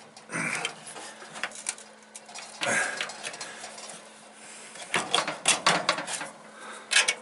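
Metal clinks and scrapes from a screwdriver working at a steel tool box's drawer slider: two short scrapes, then a quick run of sharp clicks about five seconds in and more near the end.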